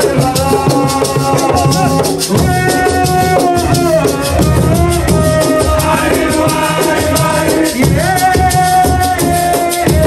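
Live assiko music: drums and a fast, steady rattle beat under long held melodic phrases, each falling in pitch at its end.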